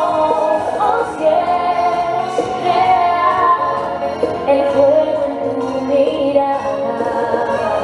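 Dance music with a woman singing.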